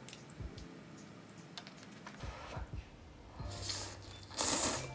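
Rice noodles slurped in two short pulls near the end, the second the loudest, after light clicking of chopsticks against the bowls.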